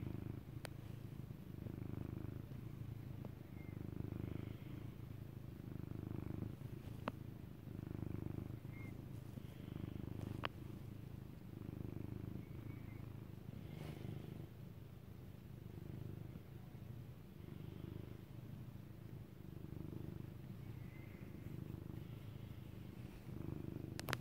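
Domestic cat purring steadily right at the microphone, a low rumble that swells and eases with each breath about every two seconds.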